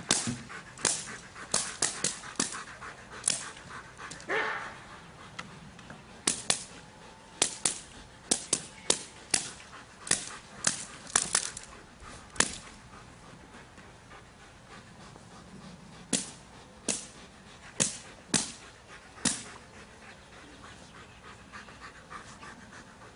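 Belgian Malinois barking in short, sharp barks, about two a second for some twelve seconds. After a short pause a few more barks follow. About four seconds in there is a single whine that rises and falls.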